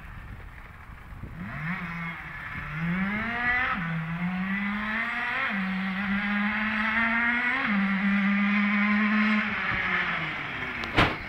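CPI SMX 50cc two-stroke motorcycle engine being ridden hard, its pitch climbing and dropping back several times as it goes up through the gears, growing louder and then fading near the end. It is running well on a freshly adjusted carburettor. A sharp knock sounds near the very end.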